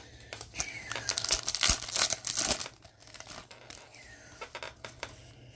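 Foil wrapper of a hockey card pack being torn open and crinkled by hand, a dense crackle from about one to nearly three seconds in, then a few lighter rustles.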